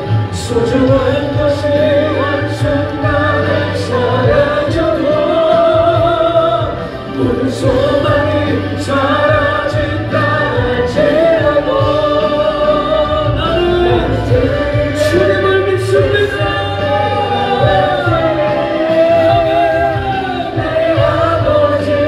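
Background hymn-like music: voices singing with vibrato over a steady instrumental backing.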